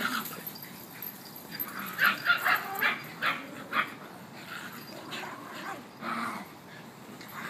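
Dogs barking in play, with a quick run of short barks and yips between about two and four seconds in, then fainter, sparser sounds.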